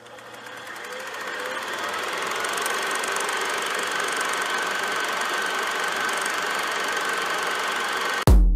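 A steady machine-like running noise that fades in over the first two seconds, holds steady, then cuts off suddenly near the end.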